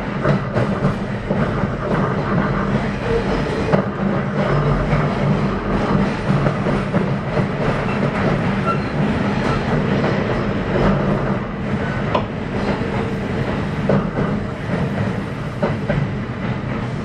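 Kintetsu 9020 series electric train running, heard from inside the car: a steady rumble of wheels on rail with a hum from its Mitsubishi traction equipment, and sharp clacks as the wheels cross rail joints every few seconds.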